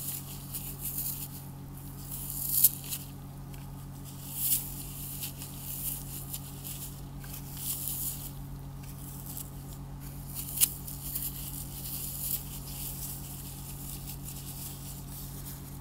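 Dry floral foam crunching and crumbling under gloved fingers: irregular crisp crackles, with two sharper snaps, one a few seconds in and one about two-thirds through.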